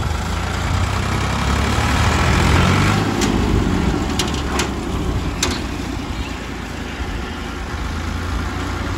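Ford 3610 tractor's diesel engine working hard under a trolley load heavy enough to lift its front wheels. Its pitch rises over the first few seconds and then holds steady. A few sharp knocks come through the middle.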